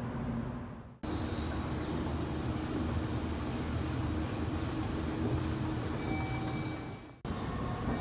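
Subway station ambience: a steady low rumble and hum of machinery. It cuts out briefly about a second in and again near the end.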